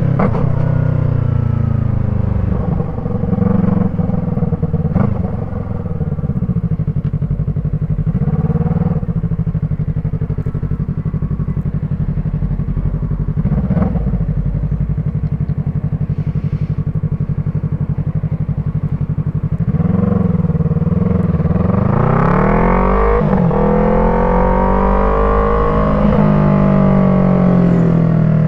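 Yamaha MT-03's parallel-twin engine running through an Arashi aftermarket exhaust as the bike is ridden. The revs rise and fall through gear changes, with a marked climb and drop in pitch late on.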